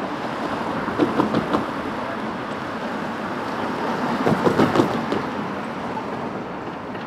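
Steady city street noise with passing traffic. It is broken twice by a short run of quick, louder pulses, about a second in and again around four and a half seconds in.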